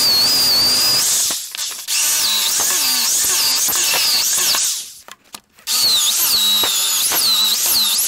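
Electric drill boring a hole in wood: the motor runs three times with brief stops between, its high whine dipping and recovering again and again under load.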